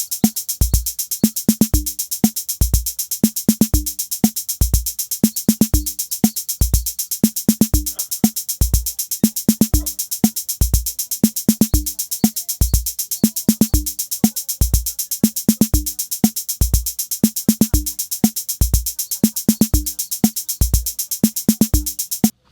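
Background music: an electronic drum-machine beat with a regular kick drum and a constant bright hiss on top, cutting off abruptly near the end.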